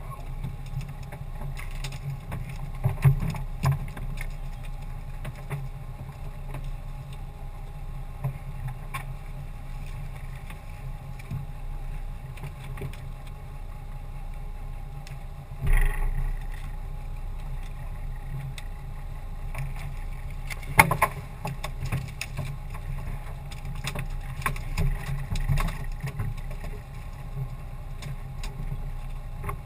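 Knocks and thumps against a small open boat's hull as snoek are hauled aboard on handlines, over a steady low hum. The loudest knocks come about three seconds in, near the middle, and about two-thirds of the way through, with a run of smaller ones near the end.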